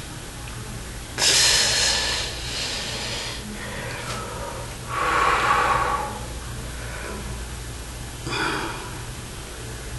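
A man's forceful breaths while flexing his muscles: three hard, noisy exhalations, a loud one about a second in, another about five seconds in and a shorter one near the end, over a steady low hum.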